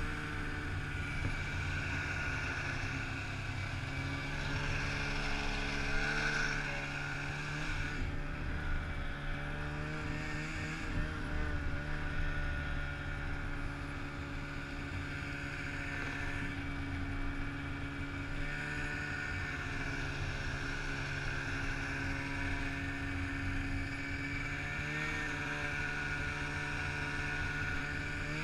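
Arctic Cat 600 two-stroke mountain snowmobile running under throttle through deep powder, the engine note rising and falling slightly as the rider works the throttle.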